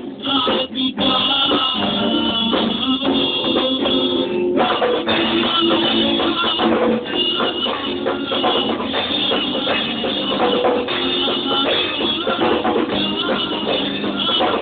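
Rock band playing a song on drum kit and guitar, with a few short breaks in the first second before it carries on at full level.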